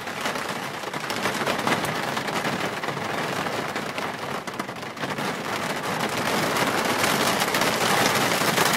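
Heavy rain pouring down, a dense steady patter of drops, with cars swishing past on the wet street, a little louder toward the end.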